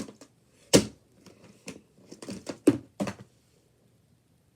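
Plastic fidget toys being handled and dropped into a bucket: an uneven run of clicks and knocks that stops about three seconds in.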